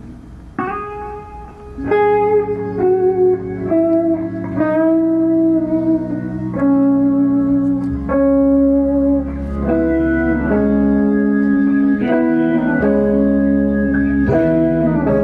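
Rock band playing live: an electric guitar plays a slow melody of long held notes over sustained chords. It is quieter at first and fills out about two seconds in, and a low bass comes in about eight seconds in.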